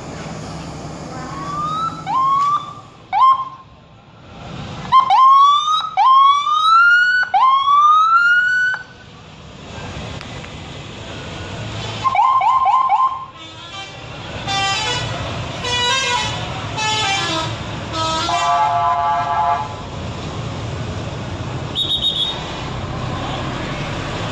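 Indonesian bus 'telolet' musical horns: first a series of rising whooping notes, repeated several times, then a quick three-note burst, then a different stepped multi-note tune. A low rumble runs underneath.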